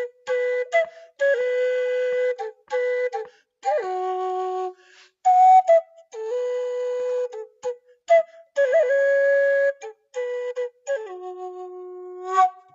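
Bamboo flute played end-blown: a slow melody of long held notes, mostly on one middle note, in short phrases with brief breaks between them. Twice it drops to a lower note, the second time held long just before the end.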